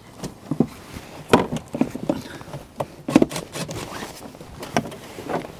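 Scattered clicks and knocks of hands working the plastic air-intake housing and its clips under a pickup's hood, loosening the intake to get at the spark plugs.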